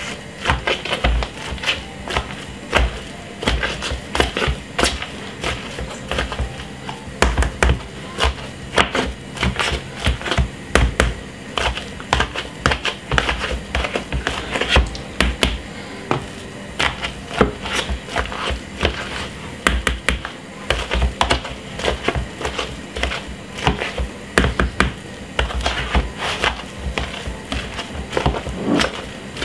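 Metal potato masher pounding boiled potatoes in a plastic bowl on a wooden chopping board: quick, irregular knocks, a few strokes a second, each with a dull thump of the bowl against the board. Background music plays underneath.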